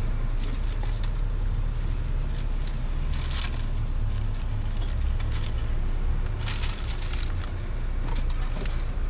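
Steady low rumble inside a car's cabin, with bursts of paper rustling and crackling from a food wrapper about three seconds in and again between six and seven seconds.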